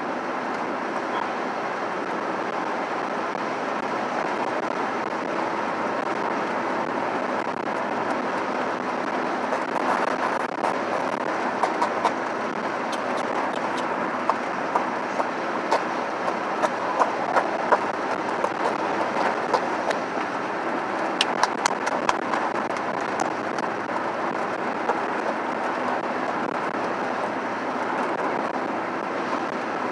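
Steady road and engine noise inside a moving truck's cabin, with scattered light clicks and taps through the middle stretch.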